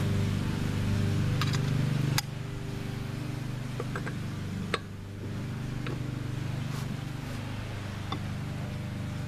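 A steady low hum, which drops in level after a sharp click about two seconds in, with a few metallic clicks of a socket and breaker bar working on a wheel's spindle nut; the sharpest click comes near the middle.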